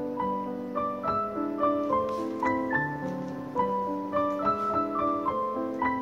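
Background music: a solo piano waltz, a melody picked out note by note over held lower chords.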